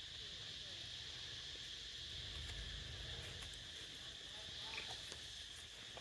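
Steady high-pitched drone of insects, with a few faint ticks and rustles of dry leaves.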